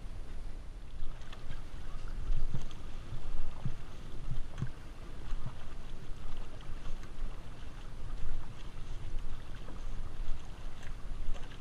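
Outrigger canoe paddles dipping and pulling through the water in steady strokes, with splashes and light knocks over a low rumble of wind on the microphone.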